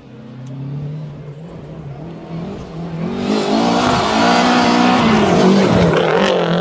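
Lancia Delta rally car's engine revving hard as it approaches and passes close by. The engine note rises and dips with gear changes, growing much louder about halfway through.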